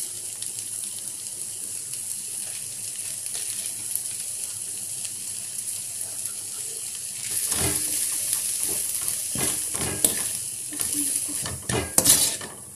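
Vegetables sizzling in oil in a metal kadai, a steady hiss. From about halfway a slotted steel ladle stirs and scrapes through them, with a few sharp knocks against the pan near the end.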